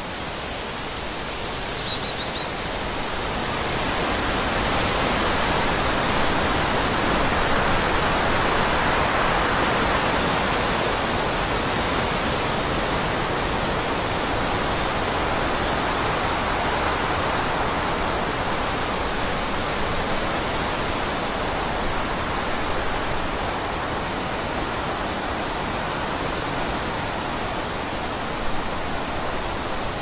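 Forest ambience of wind rushing through the trees. It swells over the first several seconds and then slowly eases. A short, high bird chirp sounds about two seconds in.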